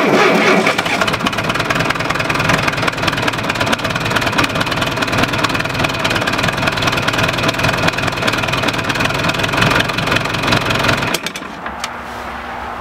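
Electric starter cranking a John Deere tractor's cold diesel engine for about eleven seconds, then it stops abruptly. The two aging 12-volt batteries are too weak to spin it fast enough to start, even with a booster charger connected.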